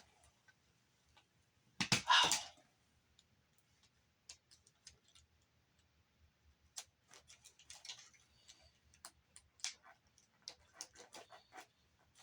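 Hand tools such as pliers working on the plastic and metal parts of a disassembled Blu-ray player: scattered sharp clicks and ticks, with one louder, noisy scrape or rush about two seconds in.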